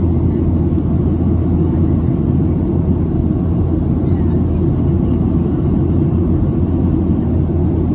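Steady low rumble of a Boeing 737-700's CFM56 engines and airflow heard inside the passenger cabin.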